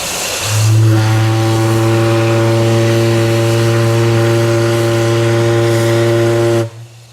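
The 1888 Kalkaska steam whistle blowing one long, deep blast on a steam manifold. A hiss of steam comes first, the whistle sounds about half a second in, holds a steady tone, and cuts off suddenly near the end.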